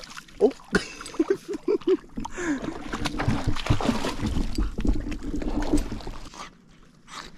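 A golden retriever wading and splashing through shallow lake water, the water sloshing around her legs, with a few short, sharp squeaky sounds in the first two seconds.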